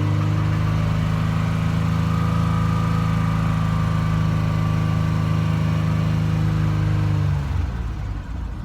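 2006 Chevrolet Impala's 3.9-litre V6 held at a steady raised speed under throttle, where the misfire clears up. About seven seconds in the throttle is let off and the engine falls back toward idle.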